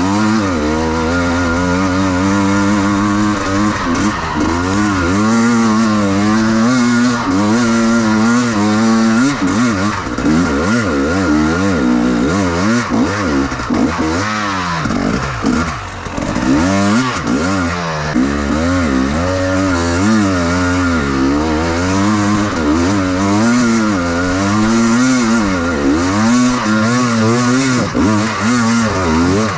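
Enduro motorcycle engine revving up and down continuously, its pitch rising and falling every second or two, with a short drop in loudness about halfway through.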